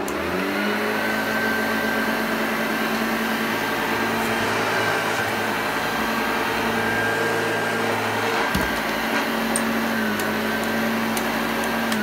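Hoover Junior U1104 upright vacuum cleaner switched on: the motor spins up within the first half second to a steady, even hum and runs smoothly, a healthy-sounding machine. It is switched off at the very end and begins to wind down.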